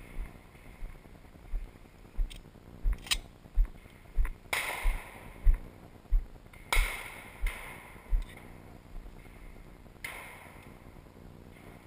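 Four shotgun shots, the first about halfway through and the rest a second or two apart, each dying away with an echo. Under them, regular low thumps of someone walking, which stop shortly before the last shot.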